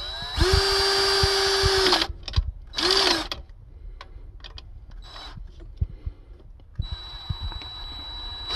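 Power drill with a 13 mm socket spinning bolts down into a cylinder head. It winds up, runs steadily for about a second and a half and stops, gives a short blip, then runs more quietly again near the end.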